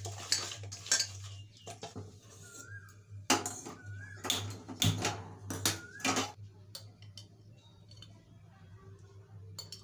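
Metal kitchen utensils and dishes clinking and knocking together: a run of sharp clatters at the start and another cluster in the middle, over a steady low hum.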